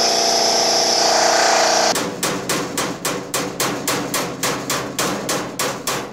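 Handheld cordless power driver running a fastener onto an intake-manifold stud: a steady motor whine for about two seconds, then a rapid, even series of hard clacks, about five a second, as the nut tightens down and the tool's mechanism slips or hammers.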